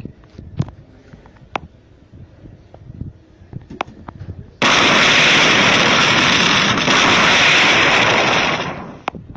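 Sound effect of a burst of flame from a phone face filter: a loud rushing hiss that starts abruptly about halfway through, holds steady for about four seconds, then fades out. A few faint clicks come before it.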